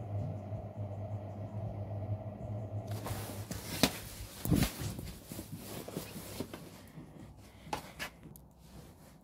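A steady low mechanical hum, then about three seconds in a phone is picked up off the floor: rubbing and rustling against its microphone with knocks, the two loudest about a second apart, and another near the end.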